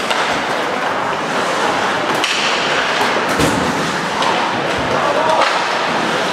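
Ice hockey play in an arena: skates scraping the ice and sticks clacking, with two dull thuds about three and a half and nearly five seconds in.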